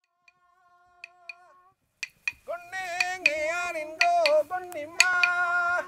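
A voice singing long, slightly wavering held notes, accompanied by clapsticks struck about twice a second. It comes in loudly about two seconds in, after a faint start.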